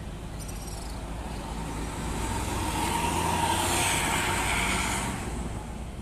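Coach bus driving past and away: engine and road noise swell for a few seconds with a hiss on top, then drop off. There is a brief high squeal near the start.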